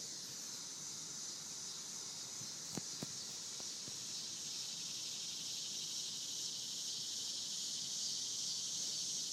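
Steady high-pitched insect chorus, with two faint clicks about three seconds in.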